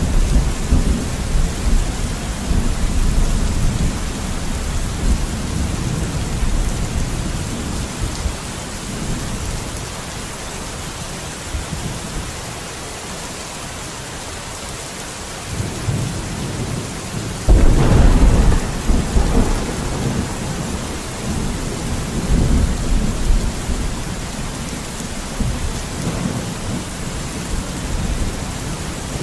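Steady heavy rain with rolling thunder: rumbling at the start that fades away, then a sudden loud thunderclap a little past halfway that rumbles on for several seconds.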